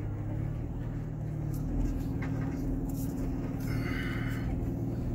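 Jeep engine running steadily at low revs as the vehicle crawls slowly over rock, heard from inside the cab, with a few faint ticks and a brief higher squeak or tone just under four seconds in.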